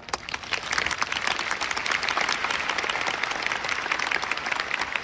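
Large audience applauding steadily, a dense patter of many hands clapping, starting just as the band's piece ends.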